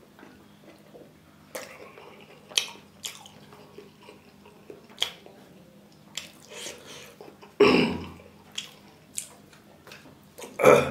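Close-miked eating of rice and curry by hand: short wet clicks of chewing and lip smacks, with fingers squishing rice against a steel plate. Two louder wet smacks come about two-thirds through and at the very end.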